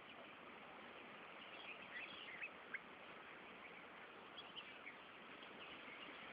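Small birds chirping faintly and briefly, a few scattered calls in two clusters, over a steady outdoor background hiss, with one sharp tick near the middle.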